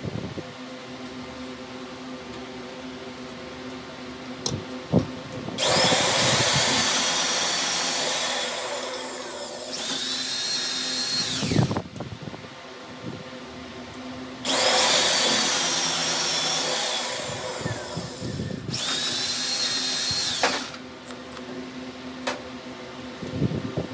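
High-pitched electric power tool run twice, about six seconds each time, starting and stopping abruptly, over a steady low hum.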